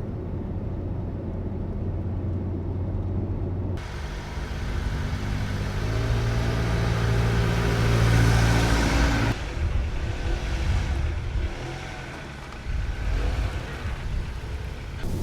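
A motor vehicle's engine running, louder and rising to a peak about eight seconds in, with abrupt cuts between takes.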